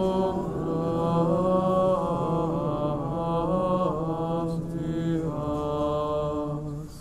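A single man's voice chanting a slow liturgical melody in long held notes, stopping just before the end.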